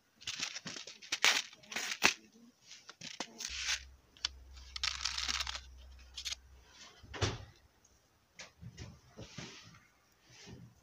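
A paper seed packet being handled and torn open: a run of sharp crinkling and ripping rustles in the first half, then softer rustling as seeds are tipped out.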